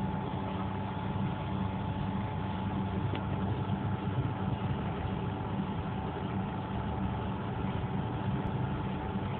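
Boat engine running steadily with a constant low hum, heard from on board.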